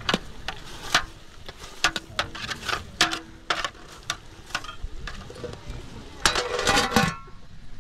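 A series of irregular sharp clicks and knocks, with a dense clatter of them about six seconds in.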